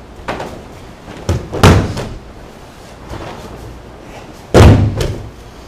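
Aikido breakfalls: the thrown partner's body slapping down onto the training mats in sharp, heavy thuds. There is a lighter one about a second in, a loud one just after it, and the loudest about four and a half seconds in.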